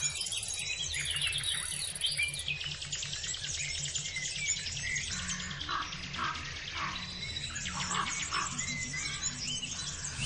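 Background music with a steady beat, overlaid with many short bird-like chirps and tweets.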